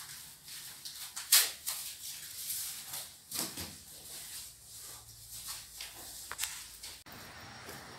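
Irregular footsteps, knocks and scuffs of a phone being carried while walking across a bare parquet floor, the loudest knock about a second in. Near the end it cuts abruptly to a steady background hiss.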